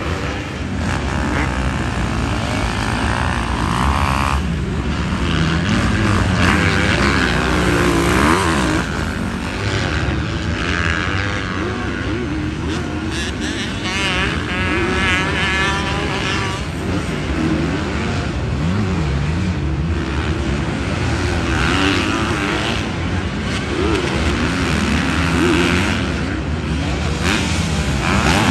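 Several motocross bikes racing, their engines revving up and dropping back in overlapping rising and falling whines as the riders work the throttle through the corners.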